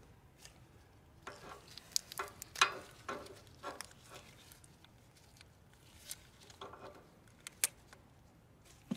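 Scattered light clicks and scrapes of hose clamps and hand tools being worked back down onto the rubber fuel hoses at a newly fitted fuel filter. There are a few brief metallic rings, about a second in and again near seven seconds.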